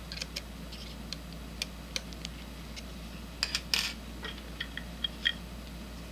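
Sparse light clicks and small metallic clinks from an Allen key and the slit lamp's light assembly as its screws are tightened down. There is a short cluster of rattling clicks a little past three seconds in, then a few short ringing clinks, over a steady low hum.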